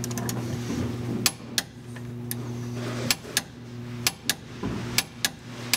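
Ratchet of a torque wrench clicking in short strokes as a rear suspension bolt is tightened: sharp metallic clicks, one or two at a time, about every half second, over a steady low hum that drops out briefly now and then.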